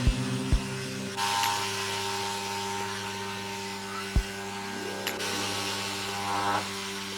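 Small DC motor switching on about a second in with a high whine and airy hiss. It runs steadily for about five seconds and stops shortly before the end, over background music with a slow, steady beat.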